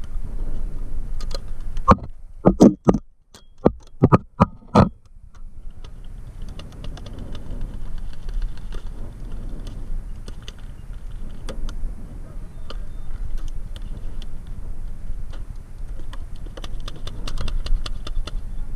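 Paintball marker firing a quick string of about nine sharp pops, starting about two seconds in. Afterwards there is a steady low rumble of handling and wind noise with scattered faint clicks.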